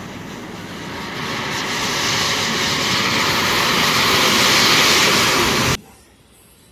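Thousands of matchstick heads igniting in a chain: a rushing hiss of flame that grows louder over a few seconds, then cuts off abruptly near the end.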